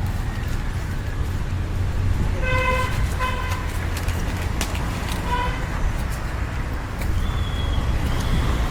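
Street traffic with a steady low rumble, and a vehicle horn honking three short times, twice in quick succession about two and a half seconds in and once more a couple of seconds later. A few sharp clicks come through as well.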